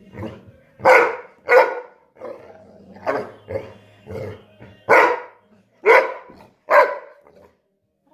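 Yellow Labrador barking at a lemon slice held out to it: about six loud, short barks spread over several seconds, with a few quieter yips and huffs between them.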